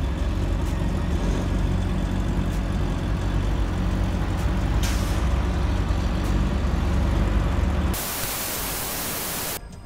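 Sport motorcycle engine running at a steady idle with a low rumble. About eight seconds in it is cut off by a loud hiss of TV static lasting over a second.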